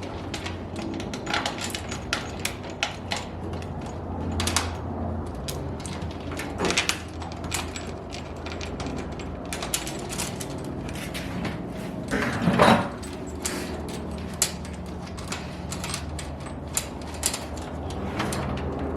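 Rivets being set one after another to fasten a wickerbill onto a car's rear spoiler: a run of short, uneven clicks and snaps, with a louder clatter about twelve seconds in, over a steady low hum.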